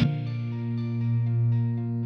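Ambient intro music: sustained, steady chords over a strong held low note, the upper notes shifting about once a second.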